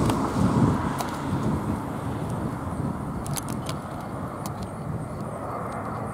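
A steady rumble of vehicle noise that is loudest at the start and eases off over the first few seconds, with the jet engines of a twin-engine airliner on final approach in it. A few light clicks sound along the way.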